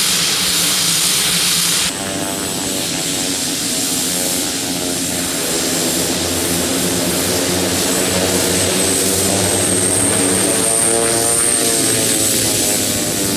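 Basler BT-67's two Pratt & Whitney Canada PT6A-67R turboprop engines running at taxi power: a high turbine whine over the propellers' hum. The sound drops and changes abruptly about two seconds in, and the whine rises a little and eases back near the end as the aircraft turns.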